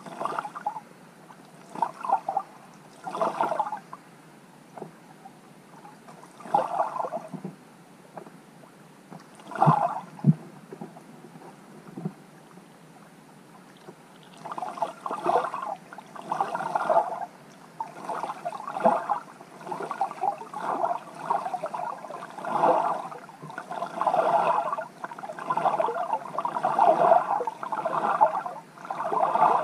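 Muffled underwater sound picked up by a camera sitting in lake water: irregular gurgling, sloshing bursts, sparse at first and almost continuous after about halfway, with a couple of sharp knocks around ten seconds in.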